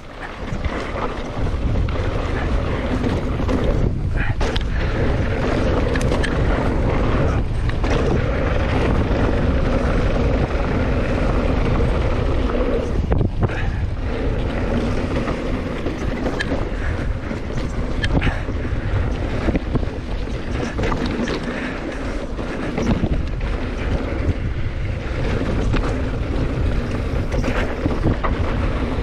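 Wind rushing over the camera microphone and tyre noise as a mountain bike descends a trail at speed, with frequent knocks and rattles from the bike over rough ground. The noise jumps up about half a second in as the ride gets going.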